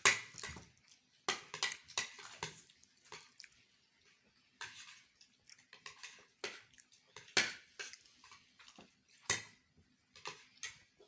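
Cutlery clinking and scraping against plates in irregular clicks as several people eat fast.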